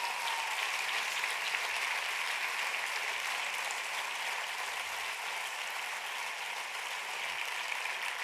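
Large audience applauding steadily, a sustained round of clapping that neither builds nor fades.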